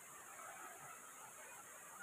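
Faint, steady trickle of a shallow rocky creek, with no distinct sounds standing out.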